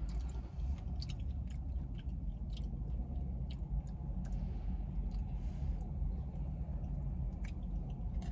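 Close-up chewing and wet mouth sounds of a person eating a KFC Famous Bowl, soft mashed-potato-based food, from a spoon. Scattered short smacks and clicks sit over a steady low hum.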